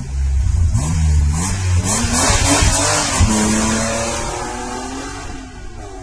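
Car engine revving hard as it accelerates, its pitch climbing in several rising surges, with a hissing rush around the middle. The sound then fades away steadily over the last couple of seconds.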